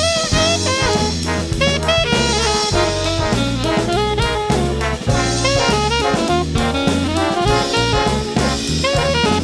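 Big band playing swing jazz: saxophones and brass over a drum kit.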